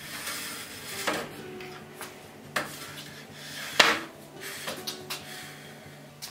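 Wooden bobsled runners with bolted iron straps being shifted by hand on sawhorses: a few sharp knocks and clanks with rubbing in between, the loudest about four seconds in.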